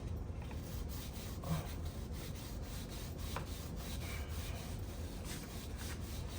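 Chain brush scrubbing a motorcycle drive chain wet with chain cleaner: a steady rubbing of bristles against the chain links.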